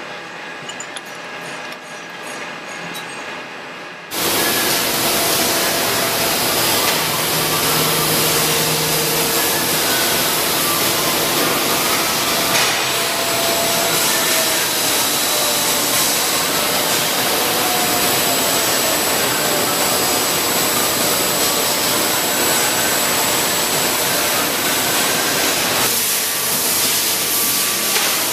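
Circular saw blade factory machinery. A milling machine cuts the blade's centre bore with faint clicks and tones. About four seconds in, it gives way abruptly to the loud, steady hiss of a grinding and polishing machine working a steel saw blade, which eases slightly near the end.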